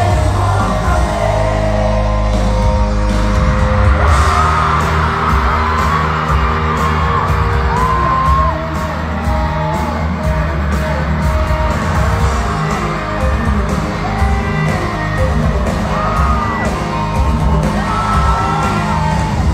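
Live pop-rock band playing loud through a concert PA, with electric guitar, bass and drums, singing over it and fans yelling and cheering.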